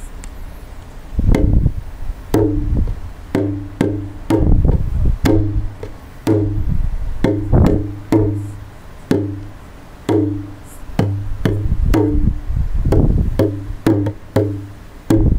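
Instrumental music with a steady beat: percussive strikes about once a second over a bass line, the introduction before the singing of a pop song.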